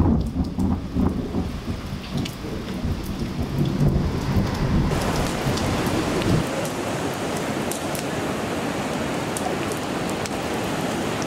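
Rain falling, with low rumbling thunder through roughly the first five seconds; after that an even, steady hiss of rain with scattered light crackles.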